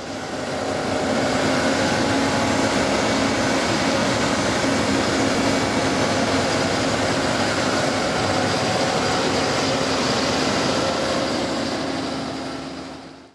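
John Deere 7530 tractor and Kuhn Speedliner 4000 seed drill running steadily, a constant machine hum with a few steady tones. It fades in at the start and fades out near the end.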